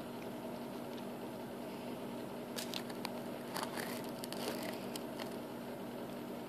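Muffled handling noise from a phone whose microphone is covered: a steady low hum and hiss, with scattered faint clicks and rubs, a few of them around the middle.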